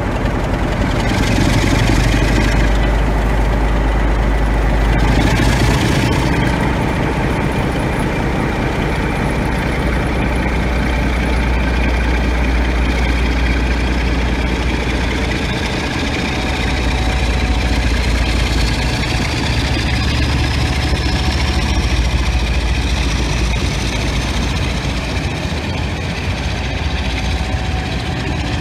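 Class 47 diesel-electric locomotive's Sulzer twelve-cylinder engine running under power as it pulls a train of coaches away, a deep steady throb. A thin whine rises slowly in pitch through the second half.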